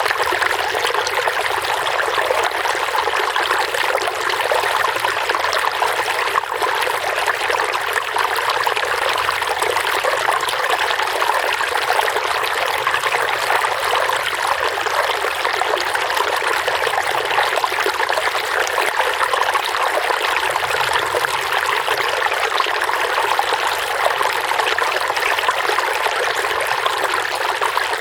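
Running water, a steady unbroken trickling and splashing of a stream.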